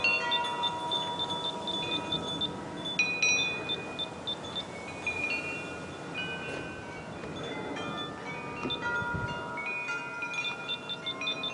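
Wind chimes ringing, with many overlapping tones at several fixed pitches struck and fading at irregular moments.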